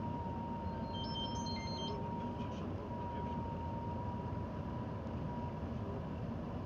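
Road and engine noise inside the cabin of a vehicle driving on a highway, a steady low rumble with a thin steady whine over it. About a second in, a short run of electronic beeps stepping up and down in pitch.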